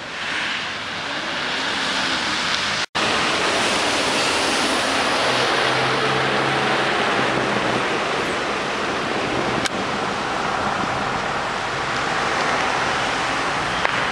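Steady rushing outdoor noise, with a brief dropout about three seconds in.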